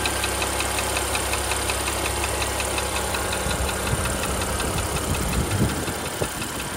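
Porsche Panamera 3.0-litre turbocharged petrol engine idling hot with a rapid, even ticking (about five ticks a second). The tick appears once the engine is warm and speeds up with engine revs; the mechanic narrows it to piston scuffing or a faulty rocker arm rather than a bearing knock.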